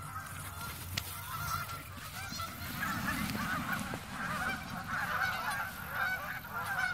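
A flock of Canada geese honking, many overlapping calls that grow busier from about two seconds in as the birds are flushed into flight.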